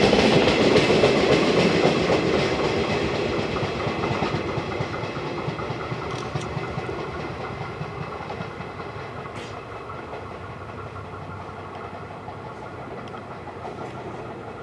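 A JR West 115-series electric train running away along the track, its wheels clattering over the rails; the sound is loud at first and fades steadily as it recedes, with a few faint clicks near the middle.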